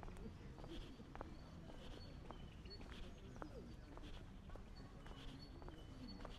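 Small birds chirping in short, high repeated notes, with a walker's footsteps about two a second, faint over a low steady rumble.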